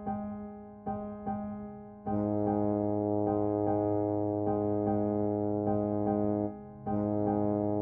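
Background piano music: a note pattern struck about twice a second, joined about two seconds in by a fuller held chord with a bass underneath. It drops out briefly near the end and then resumes.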